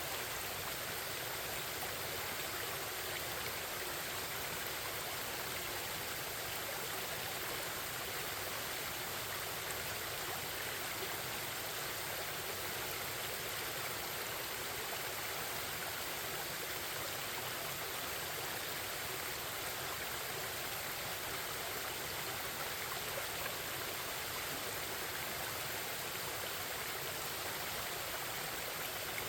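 A forest stream flowing and babbling, a steady, even rush of water.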